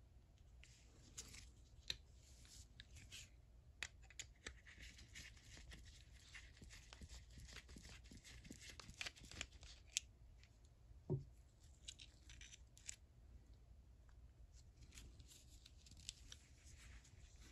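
Faint scraping and small metallic clicks of a Phillips screwdriver backing out the cover-plate screws of a vintage Billings S-1410 Vitalloy ratchet head, with gloved handling of the tool and one duller knock partway through.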